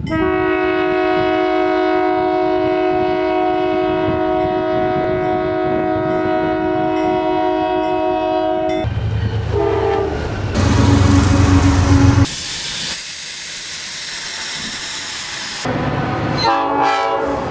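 A diesel locomotive's air horn sounds one long steady chord for about nine seconds. It is followed by a quick run of abrupt cuts between passing trains: low engine rumble, rail noise and short horn blasts.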